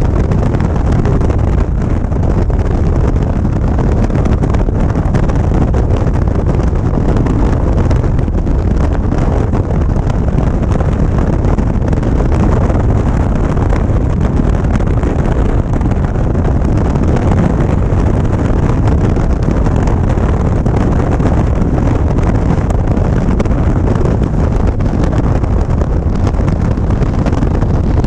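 Steady wind rushing over a motorcycle-mounted camera's microphone, with a Harley-Davidson Ultra Limited's V-twin engine running underneath as the bike cruises along the road.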